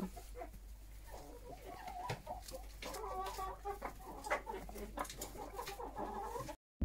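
Hens clucking quietly and repeatedly, with a few soft clicks.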